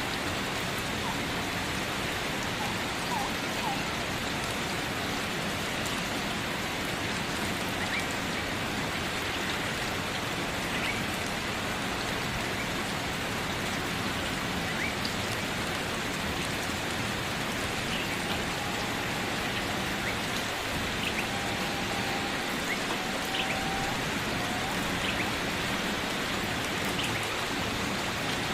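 Steady rain falling, an even hiss of many drops. Now and then a faint short high tone sounds over it.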